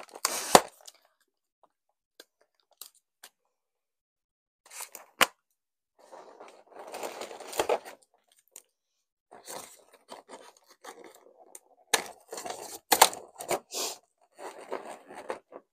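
Intermittent crinkling, tearing and scraping from balloon decorations being handled by hand, with a few sharp clicks in between.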